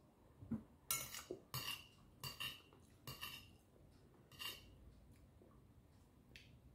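Soft clinks and scrapes of dishes and cutlery at a meal: about six short sounds over the first five seconds.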